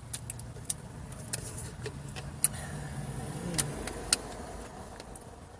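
A steady low hum with a handful of short, sharp clicks scattered through it.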